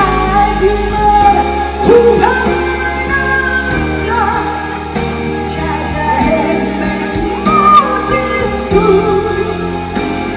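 Live band playing a rock ballad with a singing voice over it.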